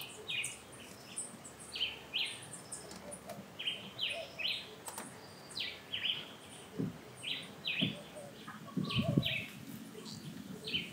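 A songbird calling over and over in short, quick downward chirps, often in pairs, about one call a second. A few soft knocks and rustles from hands working a wire into cable ties on an engine bracket come in around the middle and later part.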